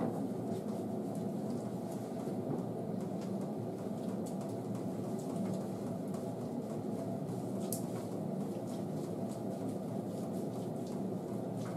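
A steady low hum runs throughout, with faint scattered wet clicks and squishes from hands working conditioner through a Shih Tzu's soaked coat.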